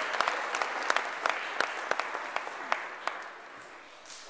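Applause from many hands clapping, thinning out and dying away about three and a half seconds in.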